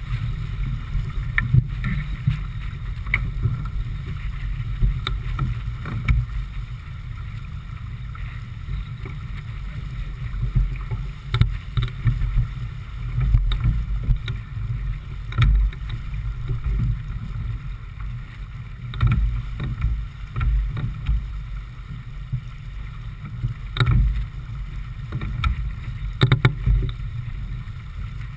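Wind buffeting the microphone on a J/24 keelboat sailing hard upwind: a loud, gusty low rumble over the hiss of water rushing along the hull, with irregular sharp slaps of water against the hull.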